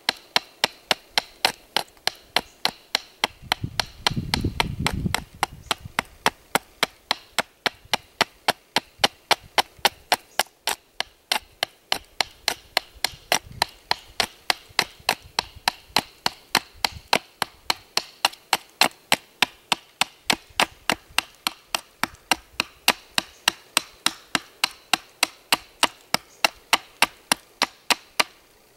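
Large knife chopping steadily at an upright wooden stick resting on a stump, about three sharp knocks a second, as small chips are taken off to bevel the wood.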